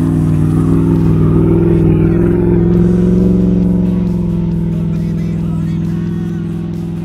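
Land Rover Discovery engine pulling hard in low gear as the truck pushes up through snow. Its pitch climbs a little about a second in, then eases back and holds steady.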